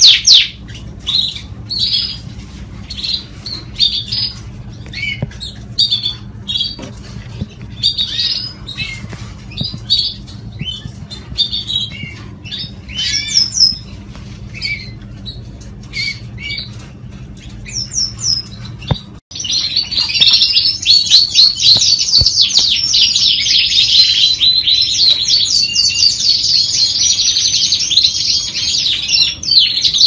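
Parisian frilled canaries giving scattered short chirps and calls. After an abrupt break about 19 seconds in, a canary sings a fast, continuous trilling song.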